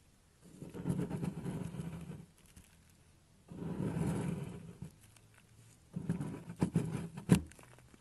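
Knife blade shaving a scored block of dry soap, with the flakes crumbling off in a dry scraping crunch. There are three strokes, and the last one breaks up into sharp cracks, with a loud snap near the end.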